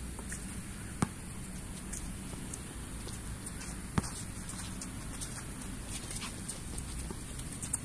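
Basketball bouncing on an outdoor concrete court, two sharp bounces about three seconds apart, with players' footsteps and shoe scuffs ticking in between over a steady hum.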